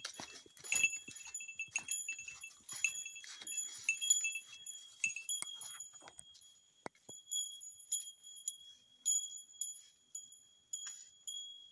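A small bell jingling irregularly with each step, among crunching footsteps on the trail. The jingling is dense at first and thins out to occasional rings about halfway through.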